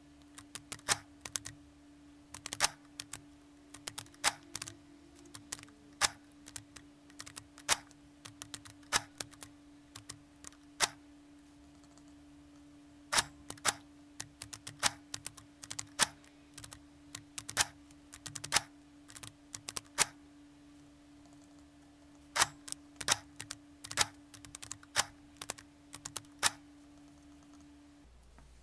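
Keys and add bar of a Friden STW10 mechanical calculator being pressed: quick clusters of sharp clicks with short pauses as a column of numbers is added. A steady low hum runs underneath and stops near the end.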